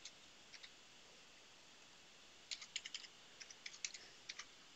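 Faint computer keyboard typing: a couple of single key clicks, then a quick run of keystrokes about halfway through.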